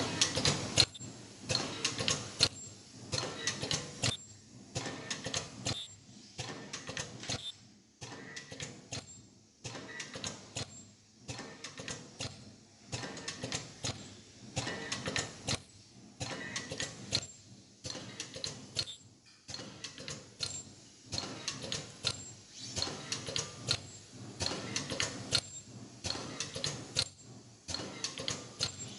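YFM-105YNCA automatic nylon zipper half-teeth welding machine running its auto cycle. Rapid mechanical clicking and clatter comes in repeating stretches of a couple of seconds, with brief pauses between them, as it feeds and welds the zipper piece by piece.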